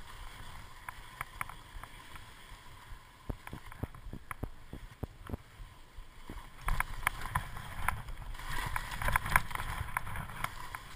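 Skis running through soft snow, picked up by a GoPro camera's microphone: a low rumble of wind and snow with scattered short clicks and scrapes, getting louder and busier about two-thirds of the way through.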